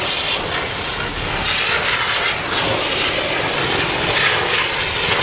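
Fire hose nozzle spraying water, just charged from the pump, giving a loud, steady rushing hiss.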